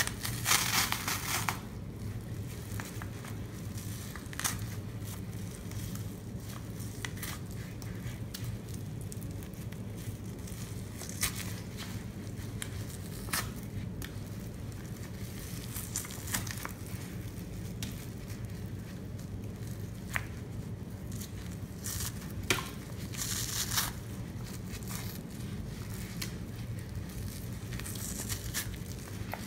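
A sponge soaked with thick Comet and Pine-Sol lather is squeezed and wrung in rubber-gloved hands, the foam crackling and squishing in irregular bursts, loudest in the first second or so and again about two-thirds through. A steady low hum runs underneath.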